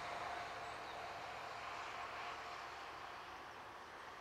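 Jet engines of an Airbus A321 airliner on final approach with gear down: a steady rushing sound with a faint whine, slowly growing quieter.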